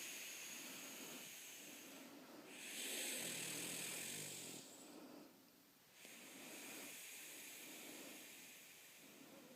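A sleeping pet snoring: slow, airy breaths, about three in all, the loudest about three seconds in with a low rattle under it.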